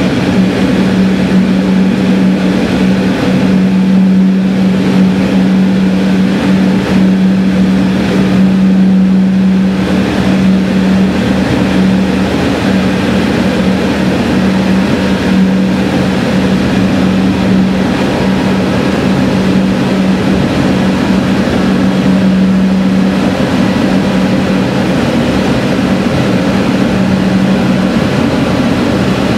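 Sanriku Railway diesel railcar running at speed, heard from inside the cab: a steady engine drone with a constant low hum under the rush of wheel and rail noise, closed in by a tunnel.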